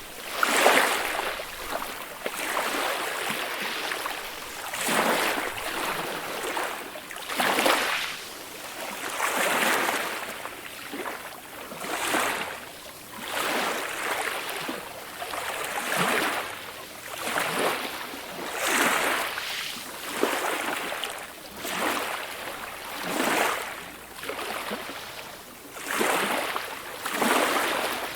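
Calm ocean waves: small waves break and wash in one after another, a hissing swell about every two seconds.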